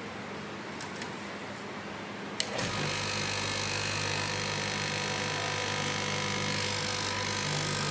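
Electric straight-knife cloth cutting machine running as a stack of fabric is fed into its blade, a steady mechanical hum. A sharp click comes about two and a half seconds in, after which the hum is louder, with several steady tones.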